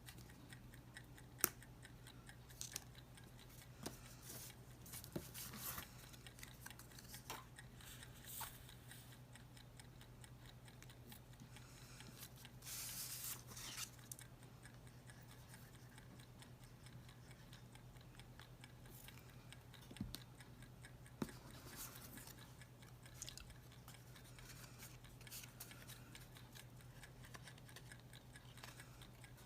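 Quiet handling of paper craft materials: scattered light clicks and taps, with a brief rustle of paper about 13 seconds in, over a faint steady low hum.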